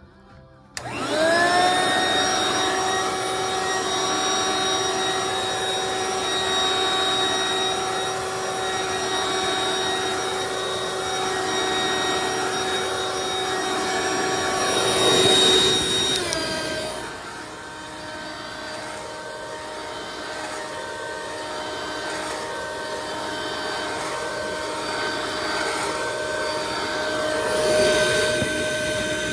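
Hoover stick vacuum's motor switched on about a second in, spinning up quickly to a steady whine. About halfway through the pitch drops to a lower, quieter note that runs on steadily.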